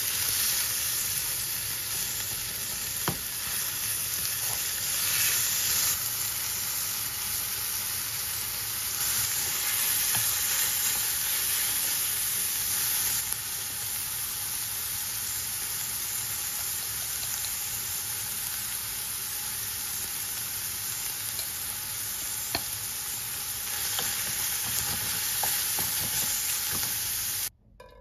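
Ground meat and chopped onions sizzling in oil in a frying pan, stirred with a wooden spoon. A few sharp taps and scrapes of the spoon on the pan stand out. The sizzle cuts off suddenly just before the end.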